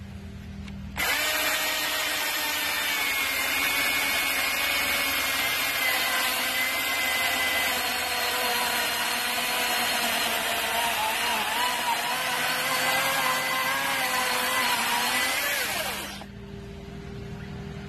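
Milwaukee M18 Fuel 16-inch brushless cordless chainsaw cutting through a log, running under load for about fifteen seconds with its pitch wavering. The sound drops to a quieter hum near the end as the cut ends.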